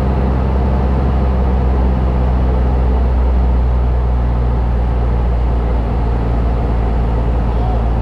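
Cessna light aircraft's piston engine and propeller running at a steady pitch, a constant low drone heard from inside the cabin.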